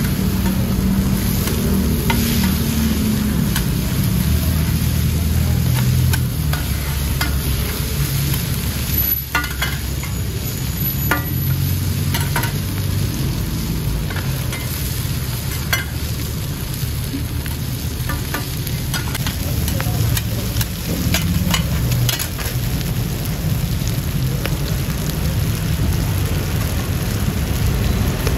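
Mussel omelettes and bean sprouts frying on a large flat iron pan, with metal spatulas scraping and clicking on the iron now and then. Under it runs a loud, steady low rumble.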